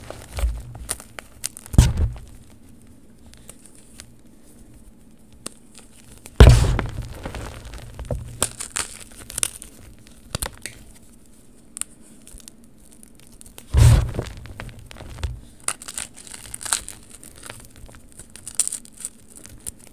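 Hands squeezing and crumbling chunky gym chalk powder, with soft crackling and crunching as the chunks break apart. There are three louder crunches, about 2, 6.5 and 14 seconds in.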